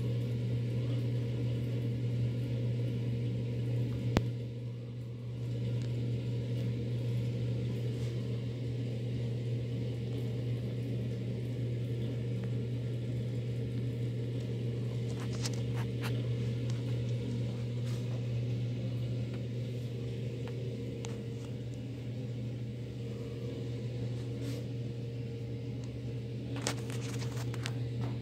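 Broan ceiling exhaust fan with a built-in can light, running with a steady low hum, with a sharp click about four seconds in.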